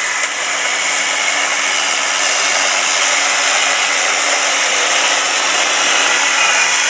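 STIHL MSA 160 C cordless 36-volt chainsaw running at full speed and cutting through a 4x4 board: a loud, steady electric-motor whine over the noise of the chain in the wood.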